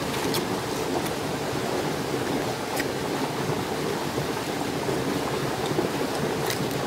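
Steady rushing background noise with a few faint sharp cracks as a cooked crab's shell is broken apart by hand.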